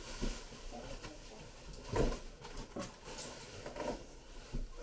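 Plastic wrapping crinkling and rustling in short bursts as hands work through it inside a cardboard box.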